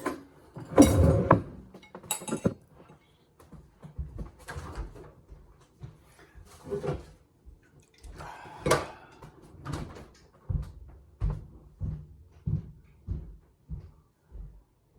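Household handling noises: scattered knocks and clatters, the loudest about a second in and again past the middle, then a run of soft low thumps, about one and a half a second, near the end.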